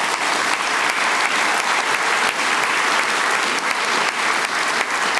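Audience applauding: many people clapping together at a steady level.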